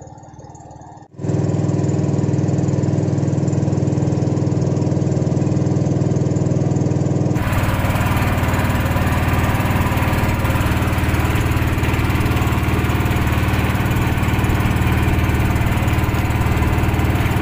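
Small motorboat's engine running steadily under way, cutting in loud about a second in. From about seven seconds in it is louder, with a rushing hiss of water and wind over it.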